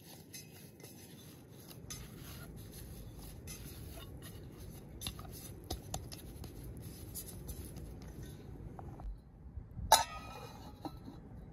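Hands kneading a ball of dough in a metal pot: soft squishing, pressing and scraping. About ten seconds in, a lid is set down on the pot with one sharp clank that rings briefly.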